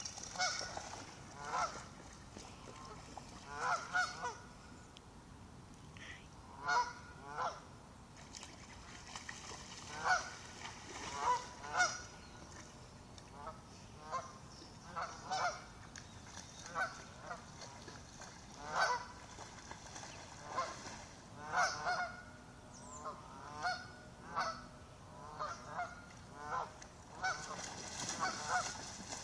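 Waterfowl giving short warning calls over and over, one every second or so, alarmed by a dog on the shore.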